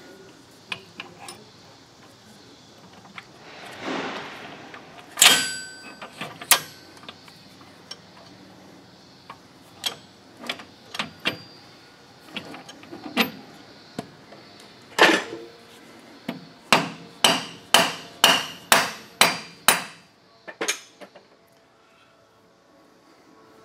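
Steel gears and shaft being fitted inside a lathe headstock gearbox: scattered metal clicks and knocks, with two sharp ringing strikes about a quarter of the way in. Near the end comes a quick even run of about nine ringing metal taps, three a second, as parts are tapped into place.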